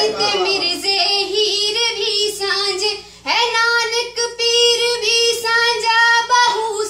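A young woman singing a Punjabi song without accompaniment, drawing out long high notes with ornamented turns. She breaks off for a breath about three seconds in, then holds one long note.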